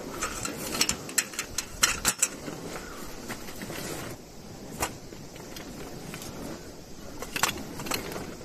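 A dark fabric bag being handled by hand: rustling cloth and small sharp clicks of its fittings, in a quick cluster in the first two seconds, once near five seconds, and again near the end.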